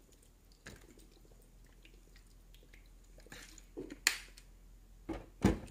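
Soy sauce poured faintly from a plastic bottle into a frying pan, then a few clicks and knocks as the plastic bottles are handled and set down, the loudest a dull thump near the end.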